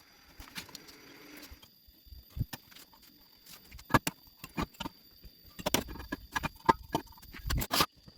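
Metal parts and tools being handled for welding: scattered sharp clicks and knocks that come thicker in the second half.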